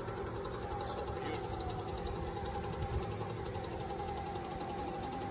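An engine running steadily in the background, a constant even hum with a faint held tone.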